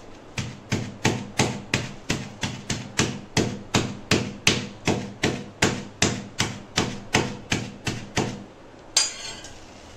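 Back of a steel serving spoon beating chicken pieces wrapped in plastic against a stone counter, about three light, even taps a second, to flatten and tenderise the meat. The taps stop a little after eight seconds in, followed by a brief crinkle of the plastic sheet.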